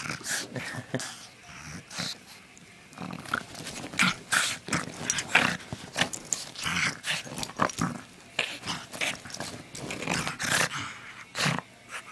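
Pug growling in short, irregular bursts while it plays and bites at a gloved hand, with bedding rustling under it.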